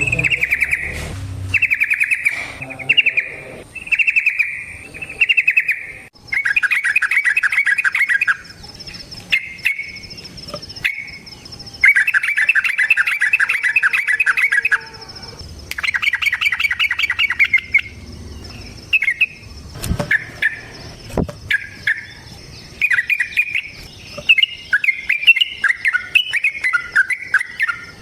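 Yellow-vented bulbul (trucukan) singing. Short bubbling phrases give way to long, fast rolling trills, the "ropel panjang" song, and then to quick chattering notes near the end. A faint steady high whine runs under it from about a quarter of the way in.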